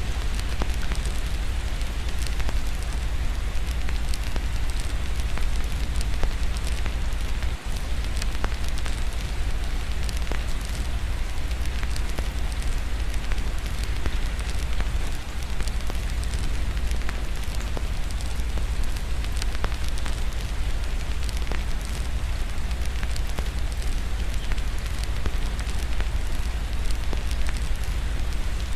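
Fireplace crackling with many small pops over a steady hiss of rain, with a constant low rumble underneath.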